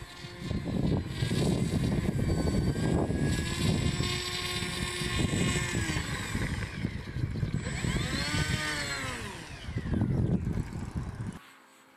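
Twin NTM Prop Drive 3536 brushless electric motors and propellers of an RC model biplane whining as it taxis on rough ground, the pitch rising and falling a few times, over a loud low rumble. The sound cuts off abruptly near the end.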